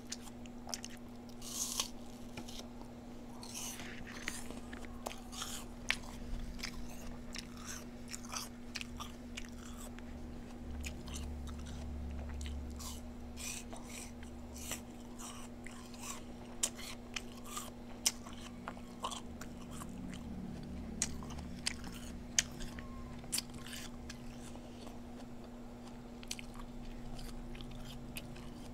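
Close-miked eating: a person biting and chewing, with many sharp, irregular crunchy clicks from the mouth and food. A steady low hum runs underneath.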